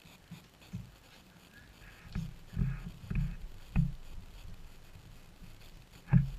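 Dull thumps and knocks, about six of them spread unevenly, the loudest near the end: bumps of movement in a whelping box where a Labrador mother and her puppies lie.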